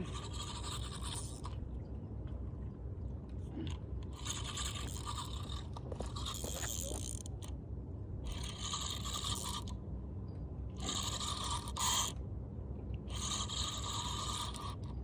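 Fishing reel whirring in six separate spurts of about one to one and a half seconds each while a large fish, a bat ray, is being fought on the line. A steady low rumble runs underneath.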